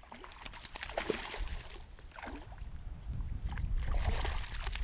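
Water splashing and sloshing beside a kayak as a hooked bass is fought on a bent rod, with scattered short ticks and a low rumble that grows louder about a second and a half in.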